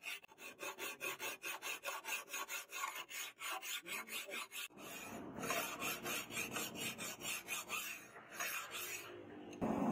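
A hand file scraping across a steel machete blade in quick, even strokes, several a second. About halfway through the strokes become longer and run together as the file works along the edge.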